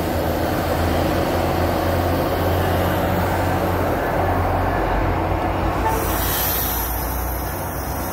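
MBTA Commuter Rail passenger coaches rolling past close by, a steady rumble of steel wheels on the rails with a low hum underneath.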